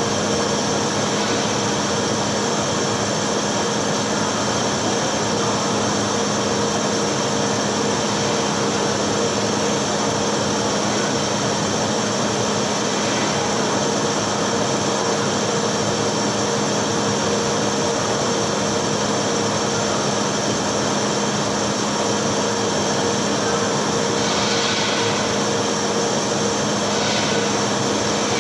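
TIG welding on thick steel plate: a steady, unbroken hiss of the arc and welder with a constant low hum.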